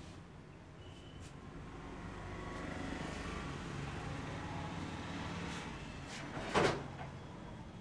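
Low background rumble that swells through the middle, then one sharp hand clap of a percussive head-and-shoulder massage about six and a half seconds in.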